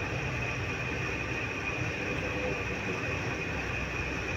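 Steady rumbling machine noise with a constant high-pitched whine running through it, unchanging while molten brass is poured from a crucible into a mould.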